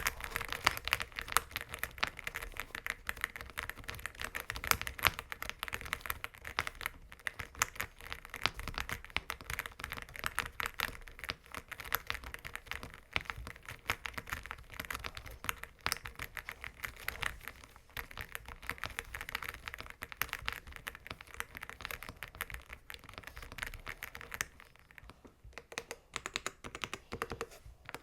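Fast, continuous typing on an AULA F75 mechanical keyboard fitted with factory-lubed AKKO Matcha Green Pro V3 switches: a dense run of keystrokes that thins to a few scattered strokes near the end.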